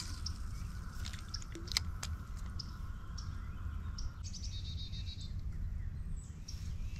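Small birds chirping in short repeated calls, with a quick trilled run about four seconds in, over a steady low wind rumble. A steady mid-pitched hum runs underneath and cuts off about four seconds in.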